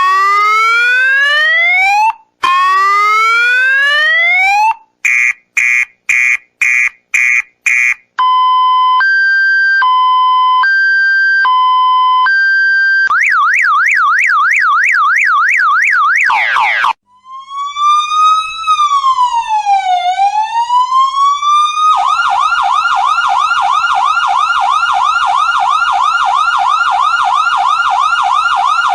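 A run of emergency-vehicle siren sound effects, one pattern after another: repeated rising sweeps, then a quick stuttering pulse, then a two-tone high-low alternation. Next come a fast up-and-down yelp, a brief slow wail that falls and climbs again, and for the last quarter a rapid warbling yelp.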